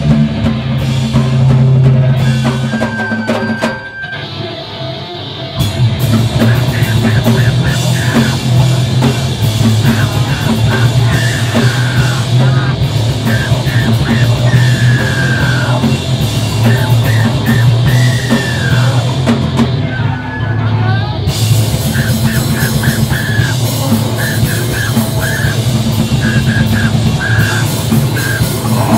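Screamo band playing live, with distorted electric guitars, bass and a drum kit with crashing cymbals. The band drops back briefly about four seconds in, then comes back in at full force.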